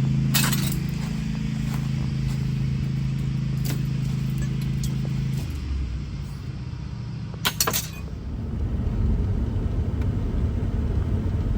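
Car noise: a steady low engine hum that cuts out about halfway through, a couple of sharp clacks, then steady low rumbling road noise from a moving vehicle.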